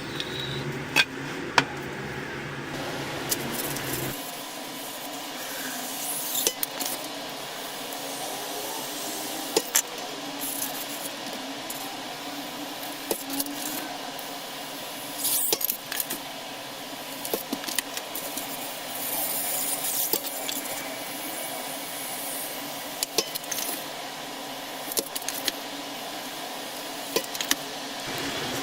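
Hot-wire foam cutter slicing through polystyrene foam: the foam squeaks and crackles as the wire passes, with many scattered sharp clicks.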